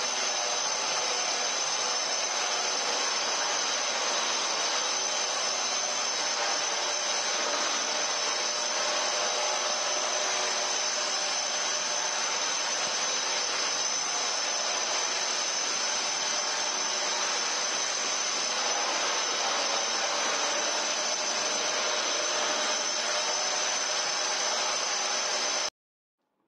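Angle grinder with a diamond disc grinding a concrete subfloor, with a Makita vacuum drawing the dust off its shroud, running steadily with a high whine over the grinding noise. The grinder is taking down a high spot in the concrete to bring the floor level. The sound cuts off suddenly near the end.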